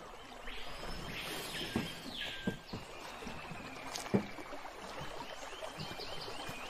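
Knocks and bumps of people climbing out of a small metal boat onto a riverbank, the sharpest about four seconds in. High chirping calls sound throughout, including a steady repeated chirp near the end.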